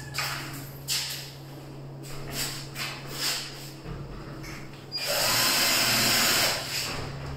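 A power drill runs in one burst of about a second and a half, a little past the middle, over light knocks and scrapes from handling the aluminium window frame. A steady low hum sits underneath.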